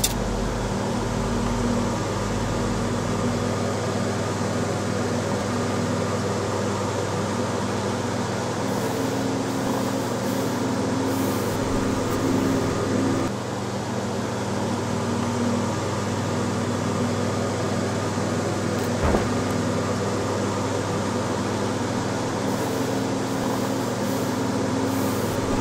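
A steady low hum with a hiss over it, unchanging throughout, and a single short tick about nineteen seconds in.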